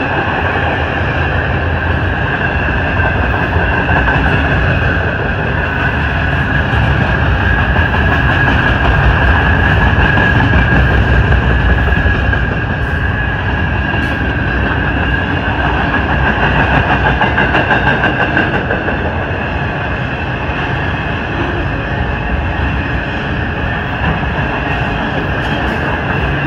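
Double-stack container cars of a freight train rolling past: a steady rumble of wheels on rail with some clickety-clack and a constant high ringing over it. The sound swells a little in the middle.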